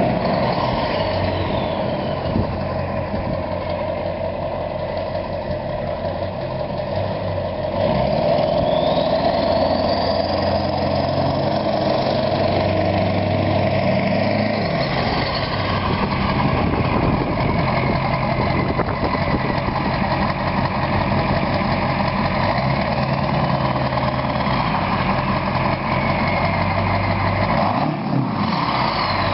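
Straight-piped 7.3 Powerstroke V8 turbo-diesel in a Ford F-250 running under load, getting louder about eight seconds in. Its turbo, fitted with a Wicked Wheel compressor wheel, whistles in several rising and falling sweeps.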